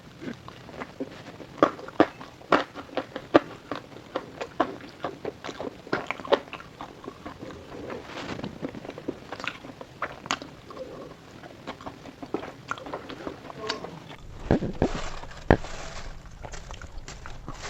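Close-up chewing of crispy fried food, with many irregular sharp crunches. About fourteen seconds in it turns louder and deeper, with a few strong cracks.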